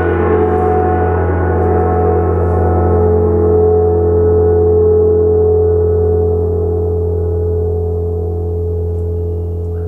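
A 70 cm Tibetan gong ringing on after a strike: a deep steady hum under many layered tones, swelling a little midway, while the bright upper shimmer gradually fades away.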